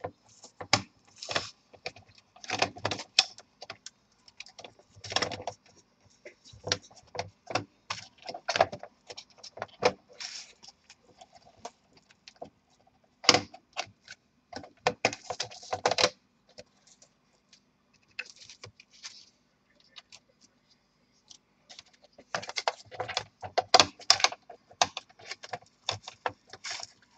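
Plastic bottom cover of a Dell Inspiron 15 5567 laptop being pressed onto the chassis by hand: clusters of sharp clicks, snaps and rattles as its clips engage. There is a quieter stretch in the middle before another run of clicks near the end.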